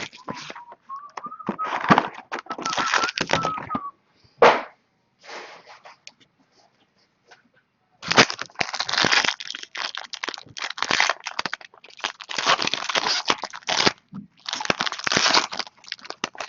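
Plastic wrapping crinkling and tearing in handled bursts as a pack of trading cards is opened. There is a single sharp click about four and a half seconds in, a short lull, then more crinkling.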